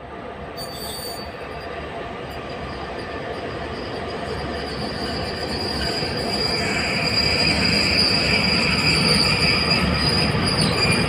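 ET42 twin-section electric locomotive hauling a freight train, rolling closer and growing steadily louder, with a high steady wheel squeal that strengthens about halfway through.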